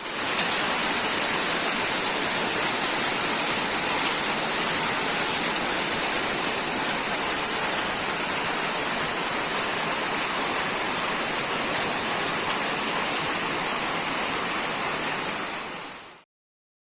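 Steady rain falling, an even hiss without pauses, fading out near the end.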